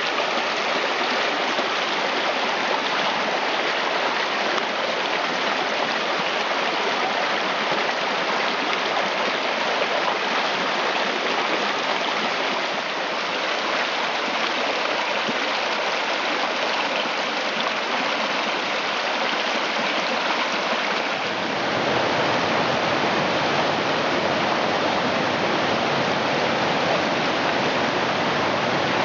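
Shallow rocky river rushing steadily over riffles and small rapids. About three-quarters of the way through, it gets a little louder and deeper.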